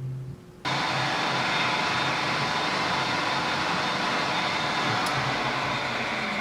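A workshop power machine running steadily with a loud, even whir; it cuts in abruptly under a second in.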